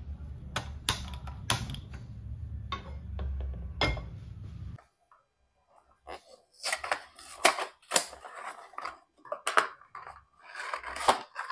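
Several sharp clicks from a hand-held gas spark lighter pressed at a gas stove burner, over a low steady hum, for the first few seconds. After a short quiet gap, irregular crackling of a cardboard food box being handled and its flap pulled open.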